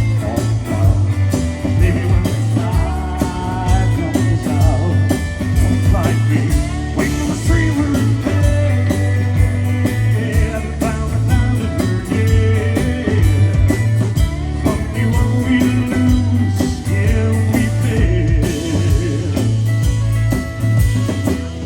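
Live band music: an instrumental passage between verses, guitar over a steady, heavy bass line with sharp beats throughout.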